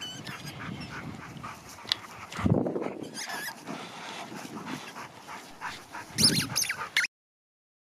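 Dogs playing on grass, with two short dog vocal sounds, about two and a half seconds in and a louder one about six seconds in. The sound cuts off suddenly about seven seconds in.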